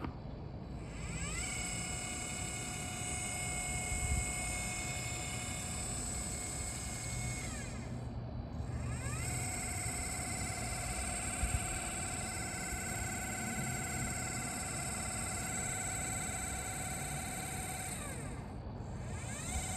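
Celestron NexStar 8SE telescope mount's drive motor slewing: a high motor-and-gear whine that rises in pitch as it speeds up, holds steady, then falls away as it slows to a stop. This happens twice, and a third run starts near the end. It is the odd noise the owner reports from the mount.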